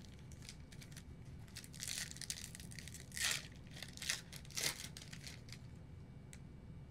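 Cardboard football trading cards being handled and slid against one another: a few short rustling, scraping swipes between about two and five seconds in.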